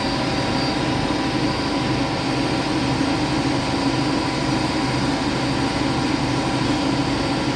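Machine tool running steadily during a boring job, a constant hum with a faint steady whine.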